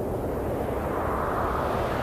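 Yamaha synthesizer noise patch: a rushing wash of filtered noise that slowly swells and grows brighter as the filter opens.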